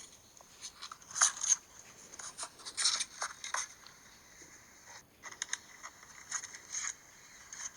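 iPhone's speaker giving out irregular short bursts of high-pitched crackling and rattling ("gasha gasha"), an unexplained fault that the owner could not stop.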